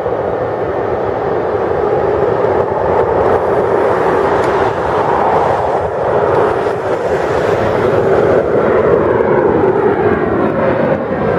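Twin-engine jet airliner's engines at takeoff thrust, a loud steady jet noise that grows slightly louder as the aircraft climbs out. Near the end the sound takes on a falling, sweeping tone as it passes overhead.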